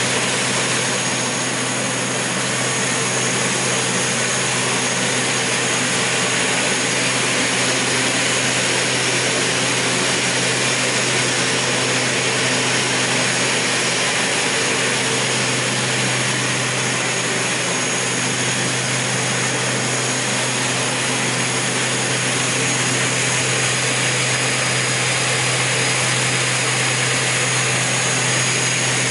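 REMA two-blade sizing saw running free with its blades spinning and no cut. It makes a steady low motor hum with a thin, constant high whine over it.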